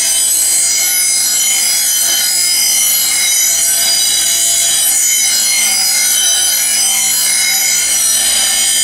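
Delta bench grinder's wheel grinding the cutting edge of a steel commercial mower blade, sharpening it. A loud, steady, high-pitched grinding that wavers slightly in pitch as the blade is worked against the wheel.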